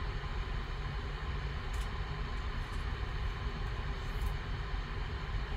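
Steady low rumble and hiss of background noise, with a few faint light ticks of trading cards being handled, about two and four seconds in.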